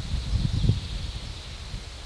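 Summer forest ambience: wind gusting through the trees with leaves rustling and a low rumble that swells about half a second in. Under it runs a faint, steady high-pitched background hum.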